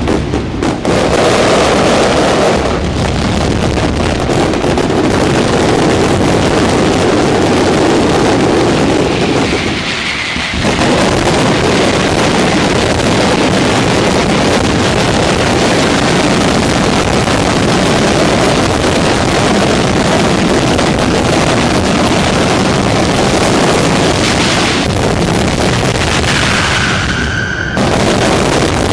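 Fireworks display: a dense, continuous barrage of aerial shell bursts and bangs merging into an unbroken roar, with a brief easing about a third of the way in. This is typical of the closing barrage of a Valencian-style pyrotechnic show.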